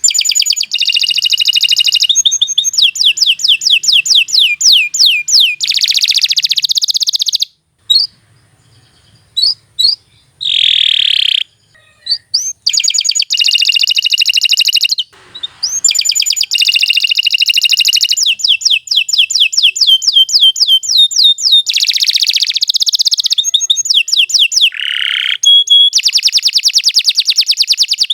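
Domestic canary singing a long, loud song of fast trills and buzzy rolls, many notes a second. About a third of the way in there is a break of a few seconds with only a few single chirps.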